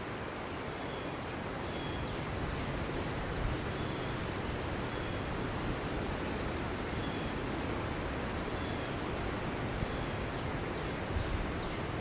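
Steady outdoor background noise, an even hiss, with faint short high notes repeating every second or two and a few low rumbling gusts near the end.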